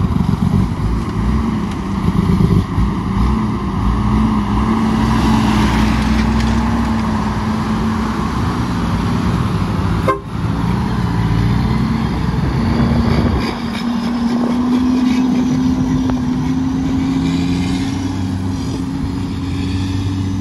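Heavy diesel truck engine running while driving, its pitch climbing slowly through the second half as it pulls. There is a brief break about ten seconds in.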